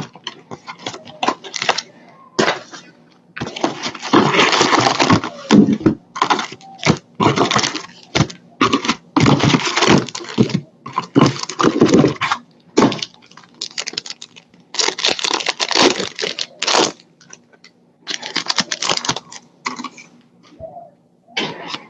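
Foil trading-card pack wrappers being torn open and crinkled, with cards handled, in irregular bursts of crackling and rustling.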